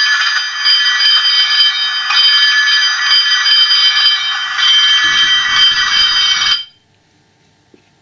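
Fire engine bell sound effect from a Hornby model railway sound unit, a bell ringing rapidly and continuously, then cutting off suddenly about six and a half seconds in.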